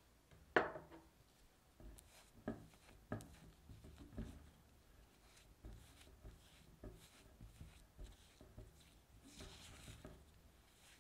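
Silicone spatula mixing softened butter and powdered sugar in a glass bowl: soft scrapes and irregular knocks of the spatula against the glass, the loudest knock about half a second in.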